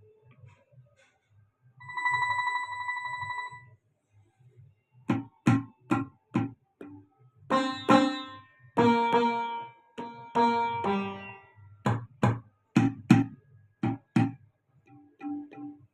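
Roland HandSonic electronic hand-percussion pad being struck: a buzzing electronic tone about two seconds in, then from about five seconds a run of irregular hits that sound percussion and ringing pitched notes. The unit has a fault with no display and low output, and a faint pulsing hum runs underneath.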